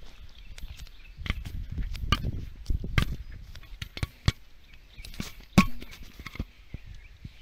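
Handling noise from a hand-held camera: irregular knocks, taps and rubbing, with one sharp knock about five and a half seconds in.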